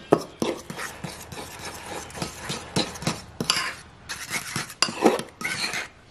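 Metal spoon stirring a thick ketchup-and-brown-sugar glaze in a bowl, with quick irregular clinks and scrapes of the spoon against the bowl.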